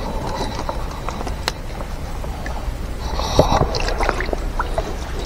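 Shallow stream water gurgling and sloshing around a person wading through it, with scattered small clicks and knocks; a sharp click about a second and a half in.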